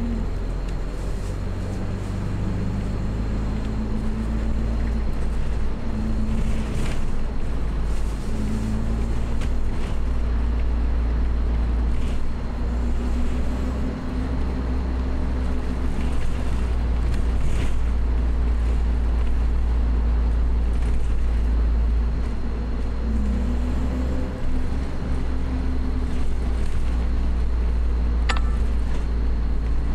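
Steady low road rumble and engine hum inside a moving road vehicle's cabin, the hum drifting up and down in pitch as the engine speed changes. A brief high chirp sounds near the end.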